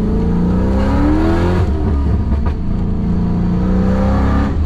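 Car engine fitted with a custom-grind camshaft accelerating through the gears: the revs climb, drop at a gear change about a second and a half in, then climb again until another shift near the end.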